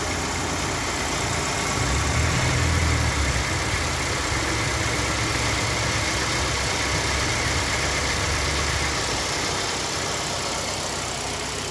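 2007 Suzuki Grand Vitara's 2.0-litre four-cylinder petrol engine idling steadily with the bonnet open, running smoothly as an engine tested good.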